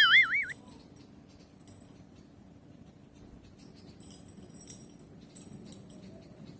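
A short wavering whistle-like sound effect right at the start, then mostly quiet with faint light jingling about four seconds in.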